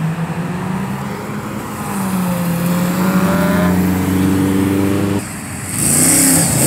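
Cars driving past one after another, their engines and exhausts running loud. About five seconds in the sound drops suddenly, then a louder engine revs up as another car passes.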